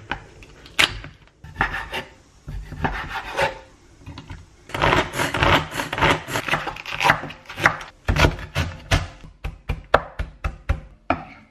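Kitchen food-prep sounds: a knife cutting through the plastic film on a meat tray, a pull-cord hand chopper whirring in a plastic bowl, then a cleaver chopping cabbage fast on a wooden board.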